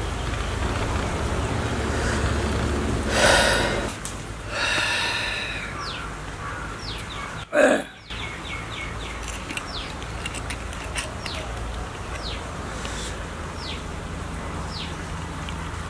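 Outdoor ambience with a steady low hum. Two louder animal-like calls come a few seconds in, then a bird calls over and over with short falling chirps, roughly once a second.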